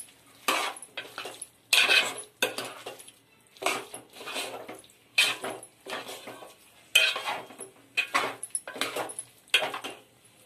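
Metal spoon scraping and knocking against a cooking pot in irregular strokes, about one a second, as soya chunks are stirred through thick masala.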